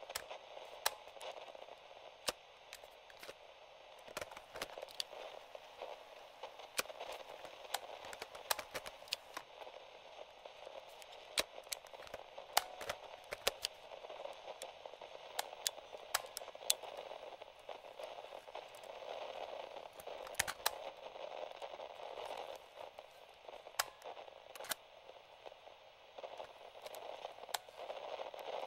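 Vintage FM/AM cassette radio giving out a steady static hiss with irregular sharp crackles and pops, no station coming through, as its side dial is turned.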